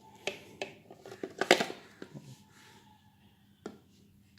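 Handling noise from the plastic voltage stabilizer: a run of light clicks and knocks as it is picked up and moved, the loudest about a second and a half in and a single knock near the end.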